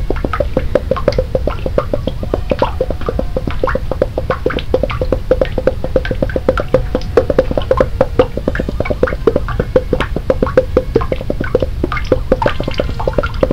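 A soundtrack of rapid, dense plinking and plopping, like water drops falling into water, many per second, with short pitched notes that make it sound musical.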